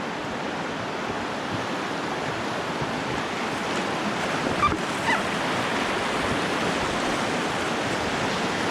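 Whitewater rapids rushing steadily, growing slightly louder, with two short high chirps about halfway through.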